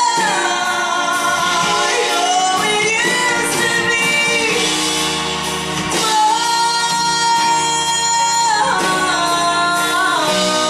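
A woman singing a ballad solo over instrumental accompaniment, with long held notes and sliding changes of pitch, including a long held note midway through.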